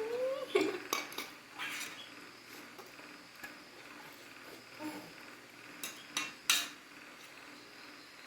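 Metal utensils and dishes clinking and knocking in kitchen work, several sharp clinks in two clusters, the loudest a little past the middle. A short wavering call, like a voice or an animal, at the very start.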